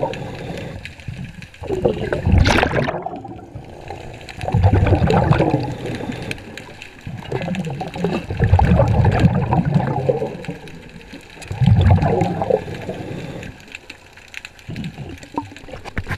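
Underwater, a diver's exhaled breath bubbles out of the regulator in four or five rushing bursts a few seconds apart. A brief hiss comes about two and a half seconds in.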